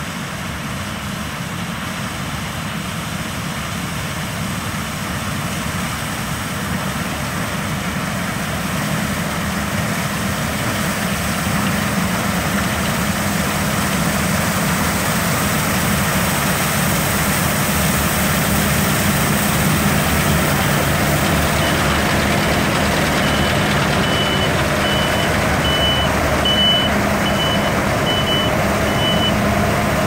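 Claas Lexion 770 combine harvester working through a standing crop as it comes closer and passes, its engine and threshing machinery running steadily and growing louder throughout. In the last third, a run of short high beeps sounds a little more often than once a second.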